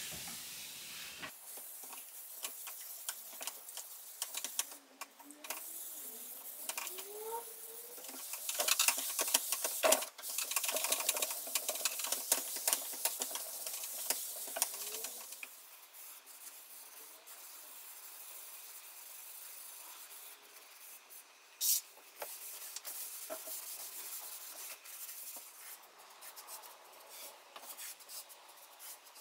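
Steel wool and a cloth rag rubbing wood stain into a bare teak tabletop and wiping it off: a scratchy scrubbing hiss, loudest in the first half, turning to softer wiping about halfway. One sharp click sounds about two-thirds of the way in.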